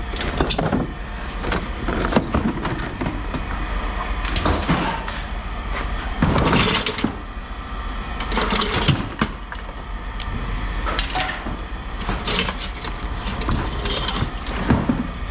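Scrap metal being handled and dropped: a string of irregular clanks, knocks and rattles of metal pieces hitting each other, over a steady low hum.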